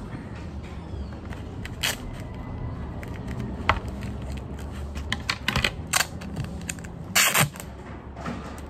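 Clear adhesive tape being pulled from its roll and cut with scissors: a run of sharp clicks and snips, with a short louder rasp of tape coming off the roll about seven seconds in.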